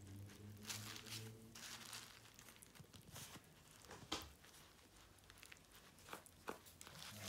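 Plastic spoon stirring and scraping Aerolite 306 powder glue and water in a plastic tub: faint crinkly scrapes with a few light clicks, the tub shifting on bubble wrap. A low hum dies away in the first second or two.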